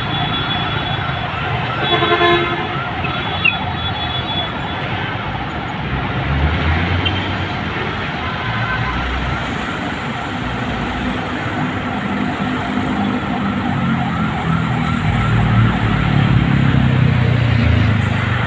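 City street traffic: vehicles running past steadily. A horn sounds about two seconds in, and a heavy vehicle's engine grows louder through the last few seconds as it passes.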